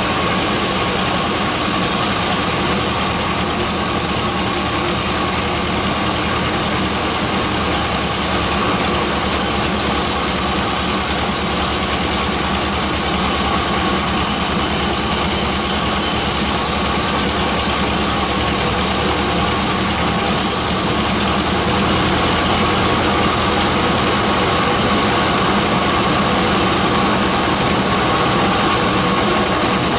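Band sawmill running, its blade ripping lengthwise through a teak log: a loud, steady machine noise that holds even throughout.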